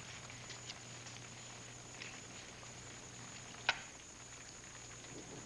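Quiet card-table handling: a few soft clicks and taps of cards and cups, with one sharper tap about three and a half seconds in, over a faint steady hiss and low hum.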